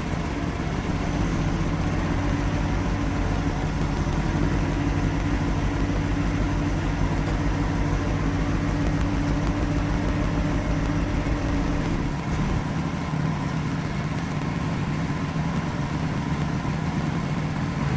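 Engine running steadily at an even speed; its low hum eases slightly about twelve seconds in.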